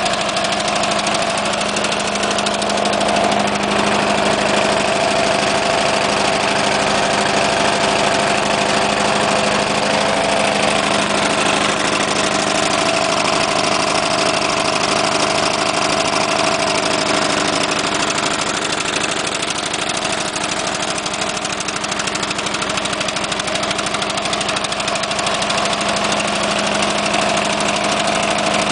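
Freshly rebuilt 15 HP Briggs and Stratton lawn tractor engine running steadily at idle on its first start after the rebuild.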